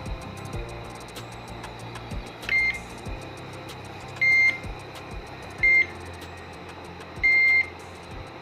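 Metal detector beeping: four short high beeps about a second and a half apart over a steady electronic hum and scattered clicks, the alert it gives when the search coil passes over metal.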